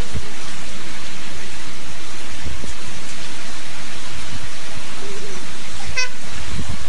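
Heavy rain pouring down in a steady loud hiss, with a few low thumps and a brief high tone about six seconds in.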